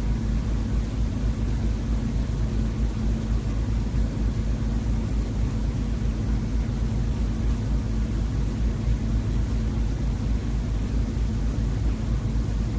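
A steady low rumbling noise with a faint constant hum running through it, unchanging in level.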